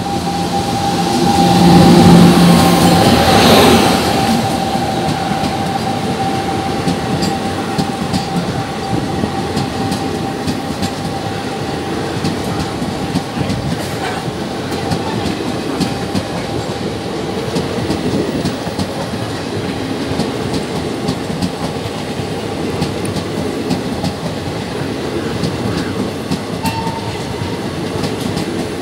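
Indian Railways WAP7 electric locomotive hauling a passenger express passes close at speed while accelerating, loudest in the first few seconds, with a steady whine that fades as it moves off. Its passenger coaches then run past with a continuous rumble and clickety-clack of wheels over rail joints.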